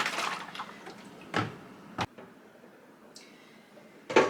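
Vinegar and warm water sloshing in a shaken container holding humidifier parts, dying away within the first second. It is followed by a few separate knocks and a click, the loudest just before the end.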